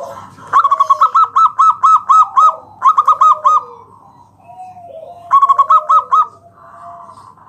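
Zebra doves (perkutut) cooing: three quick runs of short repeated notes, the first the longest, over lower, drawn-out gliding coos.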